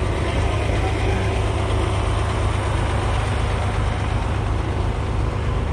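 Heavy diesel truck engine running steadily at idle, a constant low rumble.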